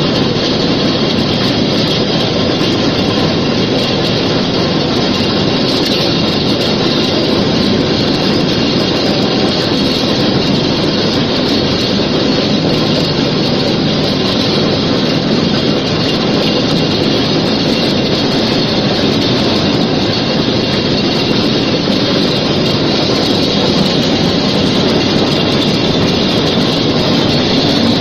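Tube stranding machine running at speed, its rotating tube spinning as it twists wire strands into a conductor: a loud, steady mechanical din.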